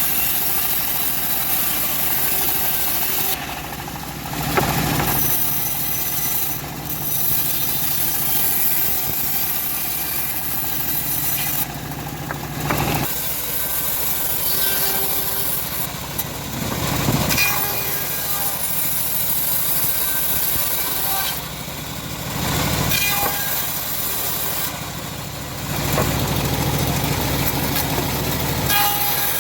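Homemade bandsaw mill running steadily while sawing semi-dry teak, its note and load shifting every few seconds.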